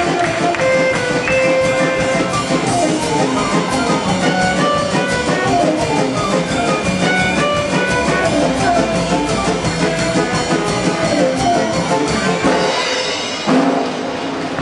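Show music playing throughout, switching abruptly to a different piece near the end.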